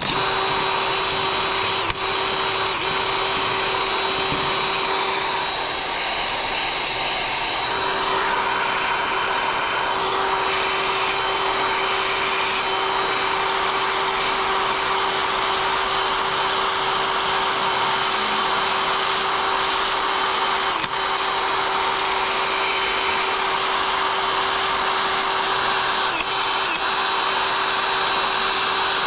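Cordless drill running steadily, spinning a soft abrasive cleaning wheel against the head-gasket surface of a Briggs & Stratton single-cylinder engine block to clean off burnt-on deposits. It is a continuous motor whine with a scrubbing hiss, and it does not let up.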